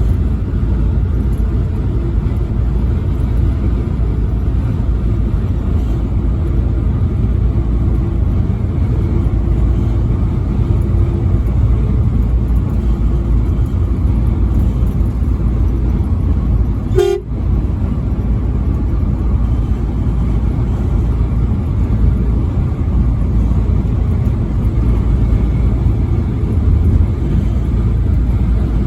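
Steady low road and engine rumble of a vehicle driving on an interstate highway, with a faint steady tone over it and a brief break about seventeen seconds in.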